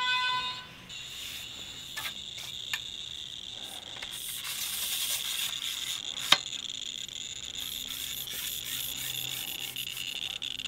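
Radiacode 103G radiation detector's clicker sounding as a steady high-pitched buzz, the counts coming so fast they run together. That count rate is the sign of a strong radiation field, about 65,000 counts per minute, with the detector held against a nuclear jet engine's reactor core. A few sharp clicks break through it, the loudest about six seconds in.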